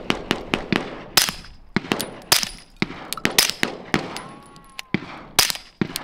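Glock 17 Gen 3 firing subsonic 9mm rounds through a Silencer Co Omega36M suppressor in its long configuration: four pretty quiet suppressed shots, the later ones a second or two apart. In the first second a faster, even string of fainter cracks runs alongside.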